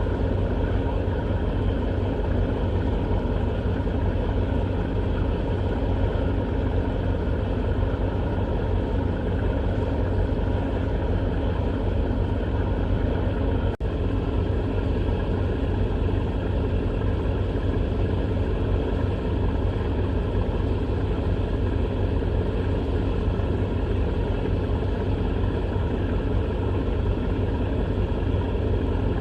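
Steady engine drone with a strong low hum and unchanging tones above it. It drops out for an instant about halfway through.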